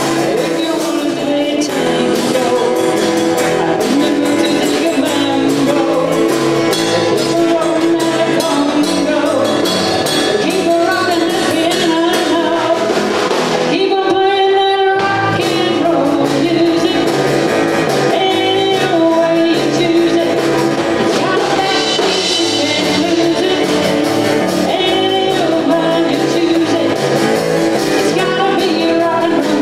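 A small rock-and-roll band playing live, with a man singing over electric and acoustic guitars, bass guitar and a Pearl drum kit. About halfway through, the drums and low end drop out for about a second before the band comes back in.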